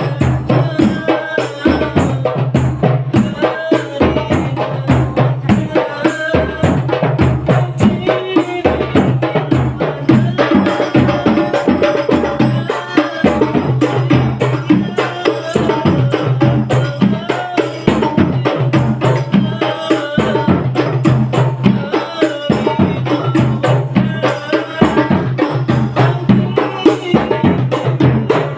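A rebana frame-drum ensemble playing a fast, steady rhythm, with voices singing a devotional melody over the drums.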